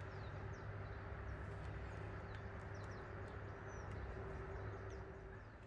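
Quiet steady low hum with a faint steady tone that stops near the end, and scattered faint short high chirps of small birds.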